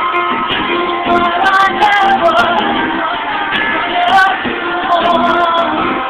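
Live pop-song performance heard from the audience: a woman singing held notes over instrumental accompaniment, dull and lacking treble.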